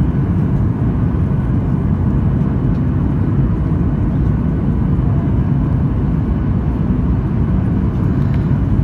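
Steady cabin roar of a Boeing 737-800 in flight: its CFM56-7B jet engines and the airflow over the fuselage, heard from a seat over the wing, a deep even rumble with no change in pitch.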